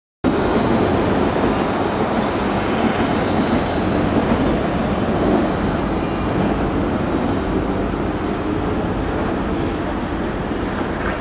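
Class 90 electric locomotive 90008 and its coaches departing, a loud steady rush and rumble of the locomotive's motors and blowers and the wheels on the track. The sound cuts in abruptly a moment in.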